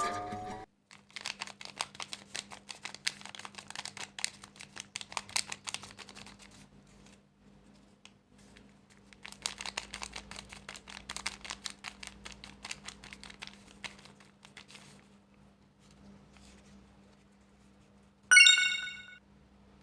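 Paper crinkling as a sheet is handled and folded, in two stretches of quick crackles over a faint steady hum. A short, loud, high-pitched tone sounds near the end.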